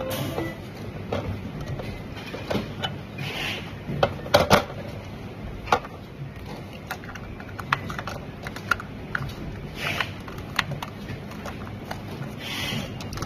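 Scattered clicks and knocks of electric fan parts being handled during a blade replacement, with a louder cluster of knocks about four seconds in and a few brief rustles.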